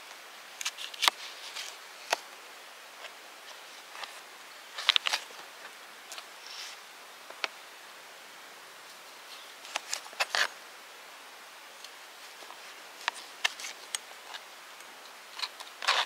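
Kitchen knife cutting a dragon fruit on a tray: irregular sharp clicks and taps as the blade slices through the skin and knocks against the tray, with small clusters of them about a second in, near five seconds, around ten seconds and near the end, over a faint steady hiss.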